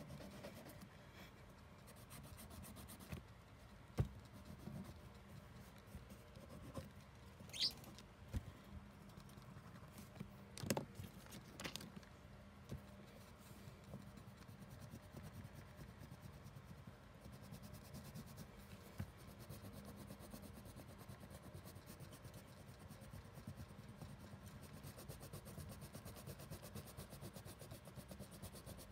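Faint crayon rubbing on paper in quick back-and-forth colouring strokes, with a few light knocks and taps in the first half. The scratching grows steady and fast from about halfway through.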